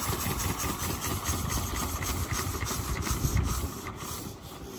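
Small single-cylinder stationary diesel engine running with a regular thumping beat, its level dropping near the end.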